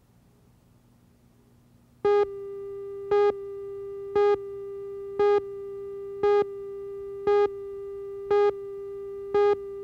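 Countdown leader on a video tape slate: a steady mid-pitched tone starts about two seconds in, with a louder, buzzier beep once a second marking each number of the countdown. Before it, only a faint hum.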